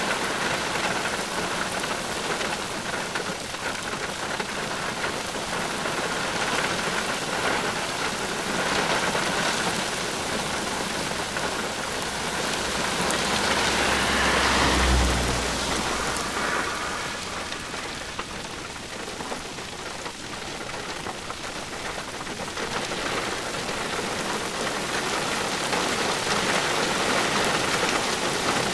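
Heavy rain falling steadily, heard from inside a car. It swells to its loudest about halfway, with a brief low rumble there, then eases a little and builds again.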